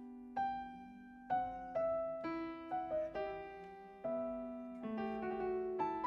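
Slow, gentle piano music: single notes and chords struck a few times a second and left to ring out.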